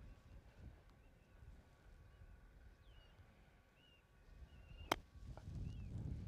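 A golf club striking the ball on a short, lofted pitch shot: one sharp click about five seconds in, after a quiet address. Small birds chirp now and then, and a low rumble rises near the end.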